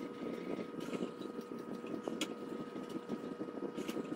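Diamond-film hone on a guided sharpening jig rubbed back and forth along a ceramic knife edge, heard in fast motion as a continuous grainy scraping, with a sharp click every couple of seconds.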